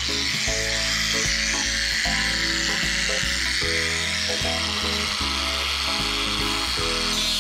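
Background music over an angle grinder's cut-off disc cutting through a length of G-scale model railway rail, a steady hissing grind.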